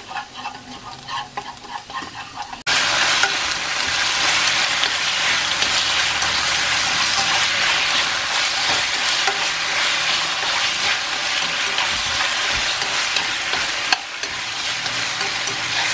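Minced garlic sizzling in hot oil in a nonstick wok, then, about three seconds in, a sudden jump to loud, dense sizzling as squid pieces sear in the oil and are stirred with a spatula; the sizzle eases a little near the end.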